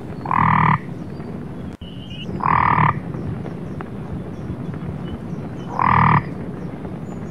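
A frog croaking three times, each call about half a second long and a few seconds apart.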